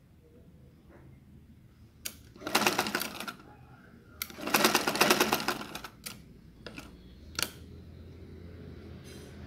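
Black domestic sewing machine stitching in two short runs of rapid needle strokes, stitching a ruffled sleeve cuff, with a few single clicks between and after the runs.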